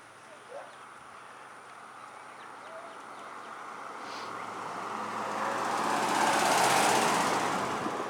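A road vehicle drives past, growing louder to a peak about two-thirds of the way through, then fading away.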